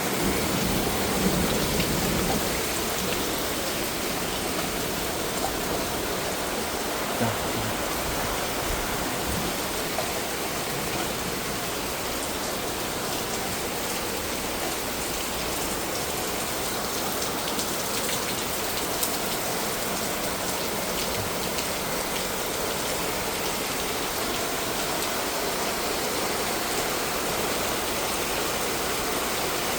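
Steady rainfall, a constant hiss of rain with scattered drops striking surfaces.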